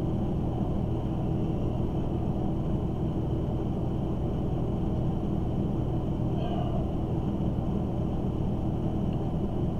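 Steady background hum and hiss with a low rumble, unchanging throughout; no speech.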